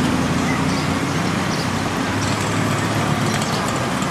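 Steady road traffic noise: motor vehicles running with a continuous low hum.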